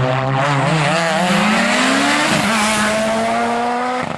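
Competition car's engine accelerating hard, revs climbing, dropping sharply at an upshift a little over two seconds in, then climbing again.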